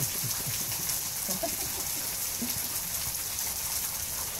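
A steady, even hiss like rain, with faint scattered rustles over it.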